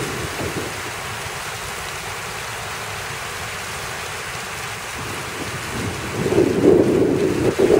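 Steady rush of water from a fountain's jets spraying and splashing into the basin, with rain falling. It swells into louder, rougher surges at the start and again from about six seconds in.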